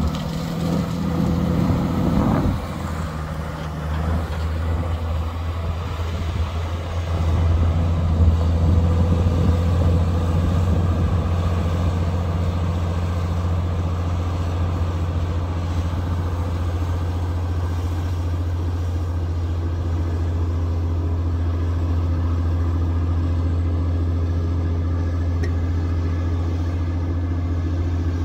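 JCB wheel loader's diesel engine running as the machine climbs a gravel pile with a loaded bucket: a steady low drone that grows louder about seven seconds in and then holds.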